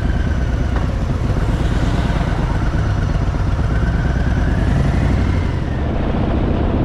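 Harley-Davidson Fat Boy's V-twin engine running steadily while the bike is ridden. A higher tone swells and falls away about five seconds in.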